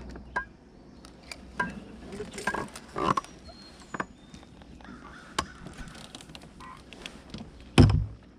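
Scattered knocks and clicks of gear handled in a fishing boat, with one heavy, low thump near the end, the loudest sound.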